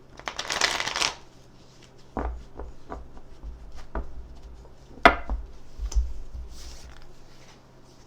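Tarot cards being shuffled: a quick rustling riffle in the first second, then a series of sharp taps and knocks as the deck is handled and cards are set down on a surface, the loudest about five seconds in.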